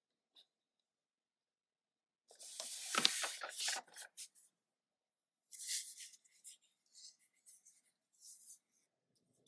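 Packaging of a Pokémon trading card collection box being handled: two bouts of crinkly, papery rustling, the first with a sharp tap about three seconds in, followed by scattered small ticks and crinkles.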